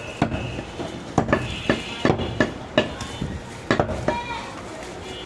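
Heavy cleaver chopping goat meat on a wooden chopping block: about ten sharp chops at an irregular pace, with a short pause in the second half.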